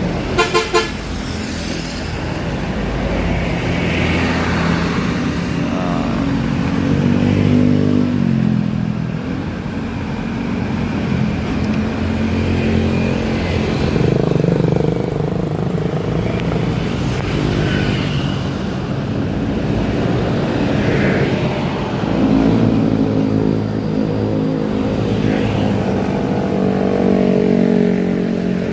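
Bus on the move, its engine running and rising and falling in pitch as it works. A quick run of three or four horn toots sounds about half a second in.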